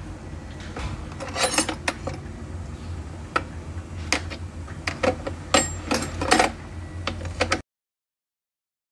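Kitchen utensils clinking and clattering against each other and the plastic utensil holder as they are put in and moved about. About ten sharp knocks sound over a steady low hum, and the sound cuts off abruptly near the end.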